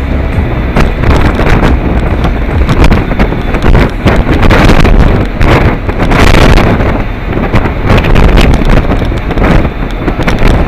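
Gale-force wind buffeting the microphone, loud and gusting, with a deep rumble underneath.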